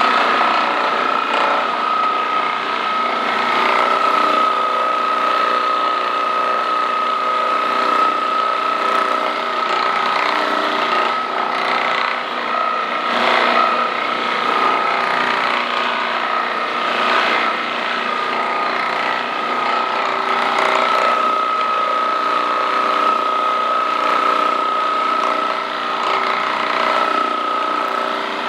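Percussion massage gun running steadily, with a constant high whine over its motor hum.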